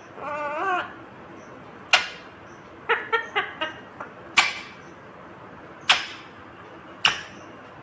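Ringneck parakeet calling: a short, wavering warbled call in the first second, then a string of brief, sharp chirps at uneven intervals.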